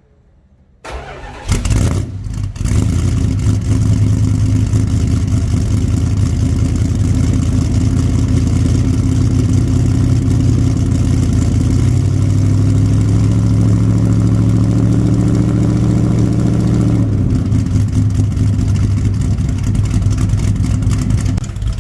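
A Dodge 340 V8 cranks and fires about a second in, then runs at a loud, steady cold idle. About halfway through, the idle picks up for a few seconds, then settles back down. The engine has exhaust leaks.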